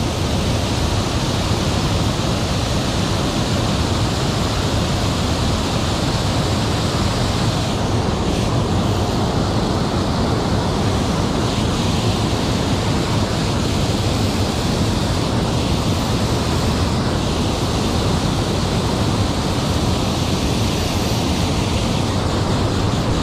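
Water pouring over a low dam spillway into the river: a steady, unbroken rush.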